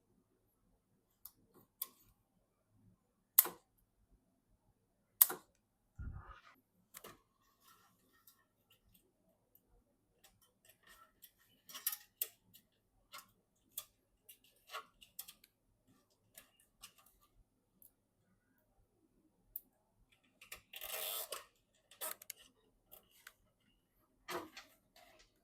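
Scattered clicks, taps and light knocks of computer hardware being handled during a PC build, with two sharp clicks a few seconds in, a dull thump around six seconds, and a short rustle near the end.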